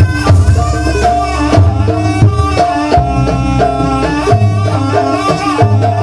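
Live Javanese jaranan buto gamelan music: drums beating under a stepped metallophone-like melody, with a deep low note that sounds in long stretches.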